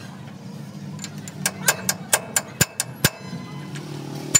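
A quick, irregular run of about a dozen sharp metallic clinks and taps: metal parts striking one another during work on a hydraulic tipper-jack cylinder, the loudest one near the end. A steady low hum runs underneath.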